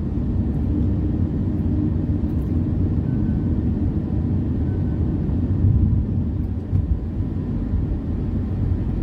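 Steady low rumble of road and engine noise inside the cabin of a moving car, with one brief louder swell about six seconds in.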